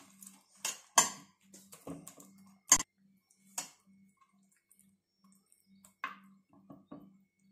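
Fingers scraping and pressing thick wet masala paste around a stainless-steel plate, with scattered light clicks and taps against the metal, the sharpest a little before the middle.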